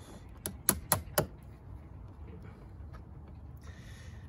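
Four quick, sharp metal taps about a quarter second apart, a tool tapping a bent battery terminal bolt to force it into the terminal clamp, then a faint rustle of handling near the end.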